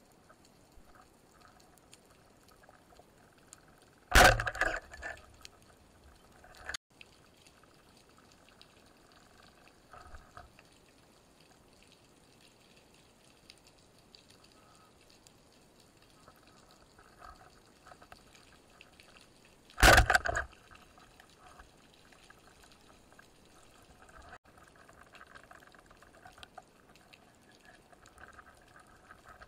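Underwater sound with a faint crackling background, broken twice by a sudden loud watery rush that fades over about a second, the two about sixteen seconds apart.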